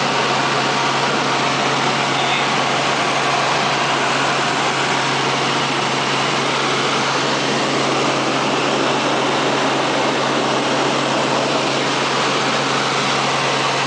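Helicopter running in flight, heard from inside the cabin: a loud, steady, unchanging noise with a constant low hum.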